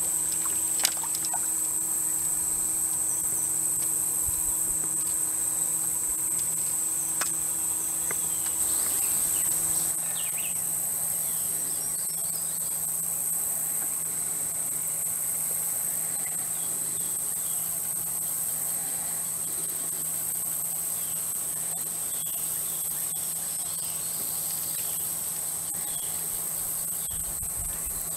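Steady, high-pitched drone of an insect chorus, with a couple of sharp clicks about a second in.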